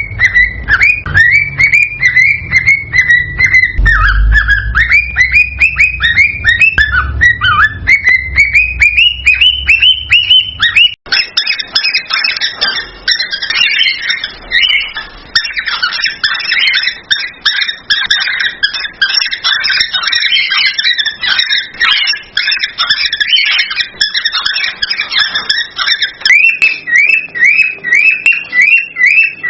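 Cockatiels calling in loud, fast repeated chirps, about three to four a second, over a low rumble. About eleven seconds in the recording cuts abruptly to a denser, overlapping chatter. Near the end it switches back to quick, evenly repeated rising chirps.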